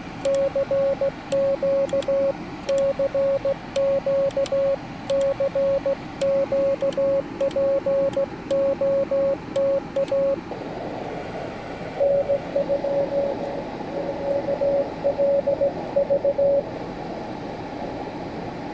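Morse code from a Yaesu FT-891 transceiver: a single steady tone keyed in dots and dashes with an iambic paddle. About ten seconds in, receiver hiss comes up and a shorter run of Morse follows at the same pitch for a few seconds.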